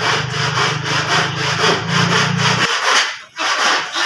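Hand saw cutting through an old painted wooden door-frame timber in quick back-and-forth strokes, about four a second, with a brief pause about three seconds in.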